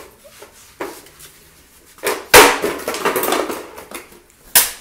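Hard plastic knocking and clattering, as of a plastic toy lightsaber being banged about: a small click about a second in, a loud clattering crash lasting about a second and a half from about two seconds in, and one sharp knock near the end.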